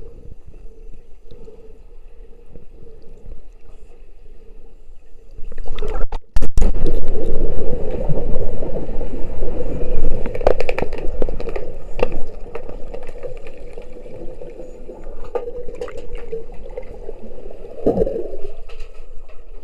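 Underwater sound heard through an action camera's waterproof housing: a steady hum with faint water noise. About six seconds in it turns loud, with water rushing past the housing and scrapes and knocks as the camera goes down to the tiled pool floor among the sticks and puck. It eases off after about twelve seconds, with one more knock near the end.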